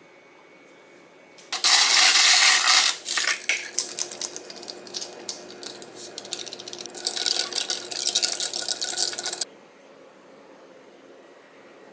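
Ice cubes rattling and clinking in a glass mug: a loud burst of clattering about a second and a half in, then scattered sharp clinks that thicken again near the end and cut off suddenly.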